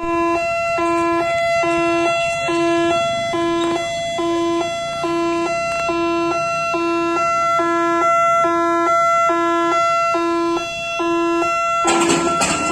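Electronic two-tone level-crossing warning siren sounding while the lifting barrier booms lower. It switches steadily between a low and a high note, a full cycle just under once a second, with a short burst of noise near the end.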